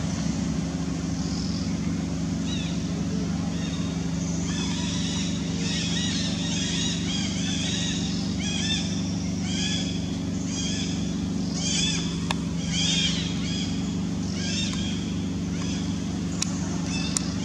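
A steady low hum, with a run of short, high chirping calls repeating about twice a second from about four seconds in until about fifteen seconds, and a few sharp clicks near the end.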